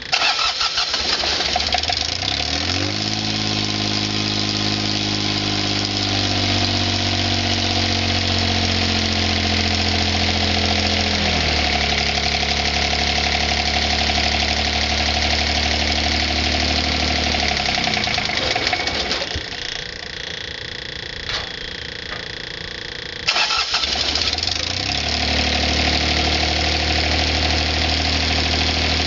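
The straight-piped 22 hp Mitsubishi three-cylinder diesel of a Bolens HDT1000 garden tractor is cranked by its starter and catches after about two seconds, then idles, dropping to a lower speed a little before halfway. It stops a little past halfway; a few seconds later it is cranked again, catches and idles.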